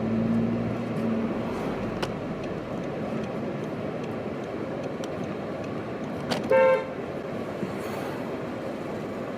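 Steady street traffic noise, with a single short car horn toot about six and a half seconds in.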